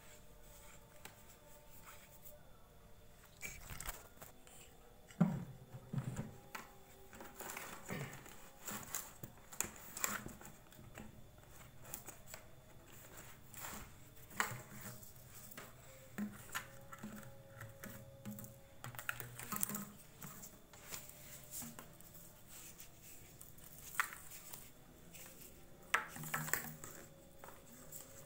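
Plastic parts being handled: a paint bucket, PVC pipe and corrugated hose knocked and shifted, with scattered light clicks, knocks and rustling.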